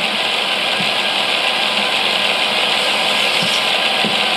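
Motorised Mould King 11012 building-block roller coaster running: its electric motor and lift mechanism make a steady mechanical whir.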